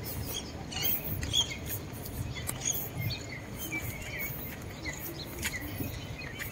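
Footsteps on a paved path with a steady rustle of walking, and small birds chirping briefly a couple of seconds in.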